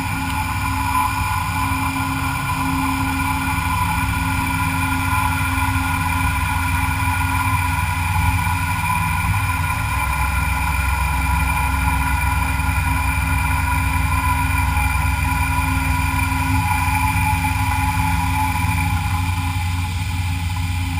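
CNC milling machine running steadily: a whine of several steady tones over a low hum, with one lower tone coming and going.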